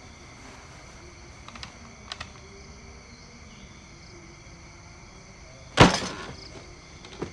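A single loud thump about six seconds in, a hand slammed down on a wooden table, over a steady chirring of night insects; two faint clicks come earlier.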